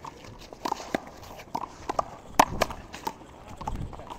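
Handball rally: sharp slaps of the small rubber ball off hands, wall and court, mixed with short sneaker squeaks on the court surface, the loudest hit about two and a half seconds in.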